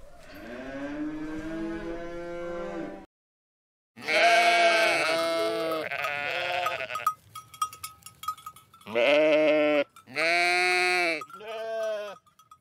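A cow lows for about three seconds. After a brief gap, sheep bleat several times in a row. A small bell rings faintly in the pauses between the later bleats.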